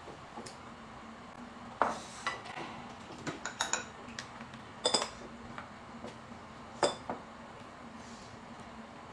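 Chopsticks clinking against bowls and the hot pot, a scattered handful of clinks with the loudest about two, five and seven seconds in, over a faint steady hum.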